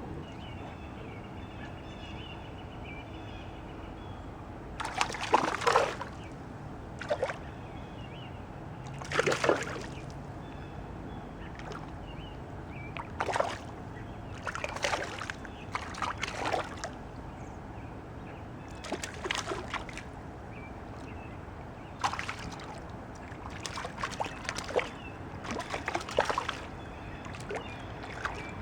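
Water splashing in a dozen or so short, irregular bursts over a steady hiss of flowing water.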